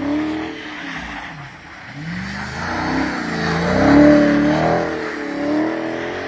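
Car engine revving, its pitch rising and falling several times, loudest about four seconds in.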